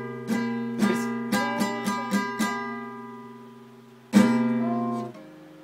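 Guitar strummed: a quick run of chord strums over the first two and a half seconds, a chord left ringing and fading, then one louder strum a little past four seconds that is damped about a second later.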